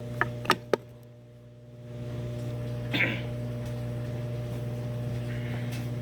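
A steady low electrical-sounding hum, with three sharp clicks in the first second and a brief rustle about three seconds in.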